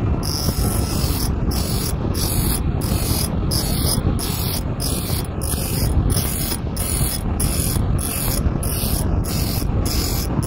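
Bandsaw blade sharpener at work: the grinding wheel rasps against the saw teeth in short, regular strokes, about two a second, over a steady motor hum.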